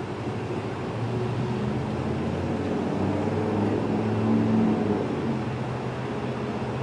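A low, steady engine-like hum that swells about a second in, is loudest past the middle, then eases a little.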